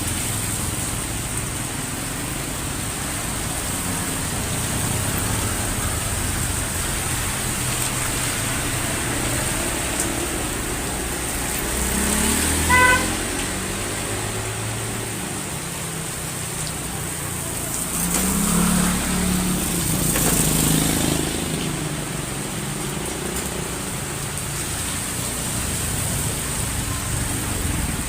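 Steady heavy rain with road traffic: vehicles pass twice, and a short car horn toot sounds about halfway through.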